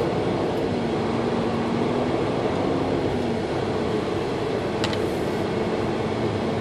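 Semi-truck cab noise: the diesel engine running steadily at low speed as the truck rolls slowly, with a low hum.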